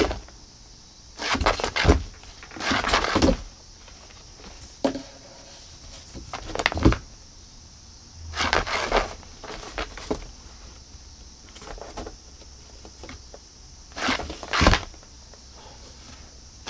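Cat's paws and claws scrabbling on cardboard and a floor mat as it swats at a string toy from inside a cardboard box: short scratchy rustles, five or six bursts a few seconds apart.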